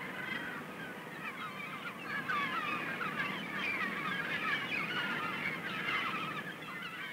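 Many birds calling at once: a dense chatter of short, overlapping calls that grows a little louder about two seconds in.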